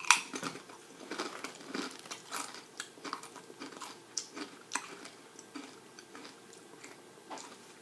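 A person chewing a mouthful of kettle-cooked potato chips: irregular crisp crunches, the sharpest one right at the start as the chip is bitten.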